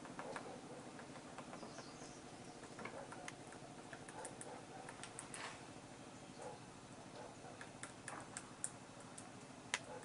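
Faint, irregular taps of a Himalayan woodpecker's bill picking and pecking at a dry branch while it forages, the sharpest tap near the end, over a steady low hum.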